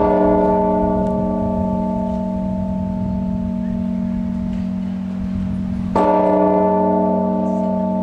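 Church bell striking noon: two strokes about six seconds apart, the first right at the start and the second about six seconds in. Each stroke rings on and fades slowly over a low hum that carries on between them.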